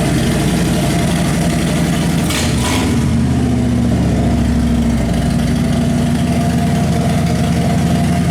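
Harley-Davidson Street Glide Special's V-twin running loud through Vance & Hines slip-on mufflers with no baffles, idling with one short rev about two and a half seconds in, then running steadily.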